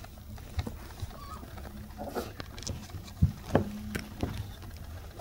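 Toy poodle puppy tugging at and chewing a fabric camera strap: scattered soft knocks, clicks and rustles of the strap, teeth and paws on a quilted mat, with a couple of sharper knocks a little past the middle.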